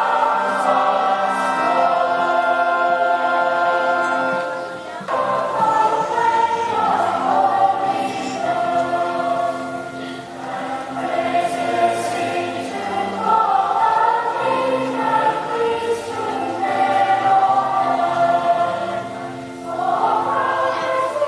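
A group of children singing a Christmas song together in chorus.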